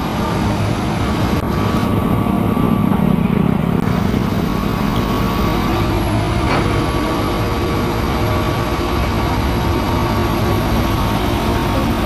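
Diesel engines of several tracked excavators running steadily under working load, a continuous low engine drone with faint steady tones over it and a brief click partway through.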